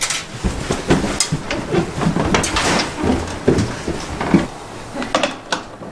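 Footsteps of several people hurrying along a wooden-floored corridor, an irregular run of knocks and thuds that thins out near the end.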